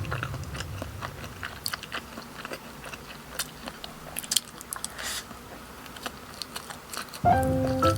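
A person biting and chewing food up close, with scattered small clicks of the mouth and food; background music comes back in near the end.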